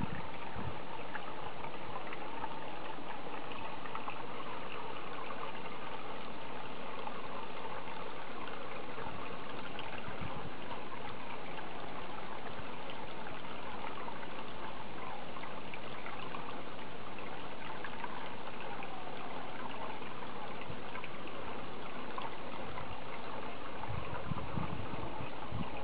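Steady running, trickling water.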